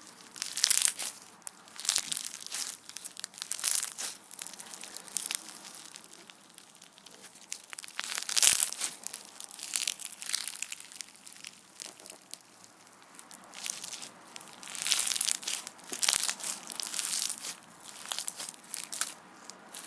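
Crunchy rubber band slime being squeezed and pressed by hand, giving repeated crackling, crunching pops in irregular bursts, loudest about eight seconds in and again in a run near the end.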